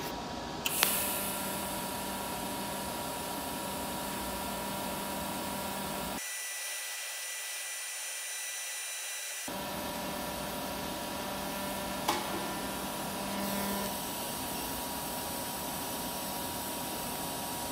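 TIG welding arc from a Blue Demon BlueArc 200STI inverter on high-speed pulse: a quiet, steady hiss with faint steady tones, starting with a click about a second in.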